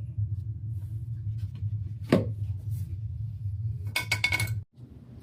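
ABS drain pipe and fittings being handled: one sharp knock, then a quick run of clacks with a short ringing, over a steady low hum that drops away near the end.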